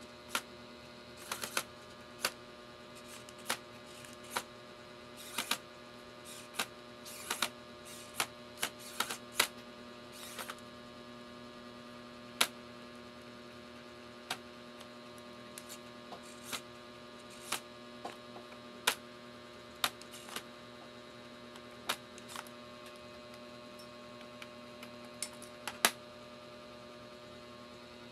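Irregular sharp clicks and taps of small tools and plastic laptop parts being handled during disassembly, thicker in the first ten seconds and sparser after, over a steady electrical hum.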